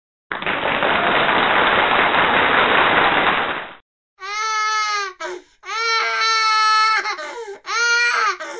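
A steady rush of noise for about three and a half seconds, then a recorded baby crying in several long wails.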